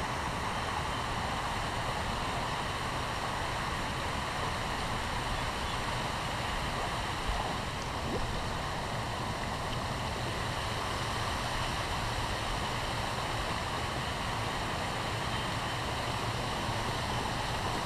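Steady rushing of river water flowing over rocks, an even wash of noise with no change in level.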